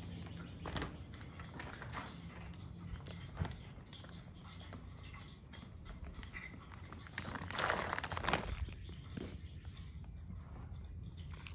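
Rustling handling noise from a phone being carried, with soft footsteps and scattered small clicks. A louder rustle, like fabric brushing the microphone, about two-thirds of the way through.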